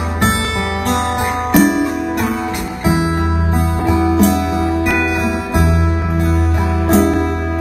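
Two acoustic guitars playing an instrumental passage, a picked lead melody over strummed chords, with a djembe keeping the beat.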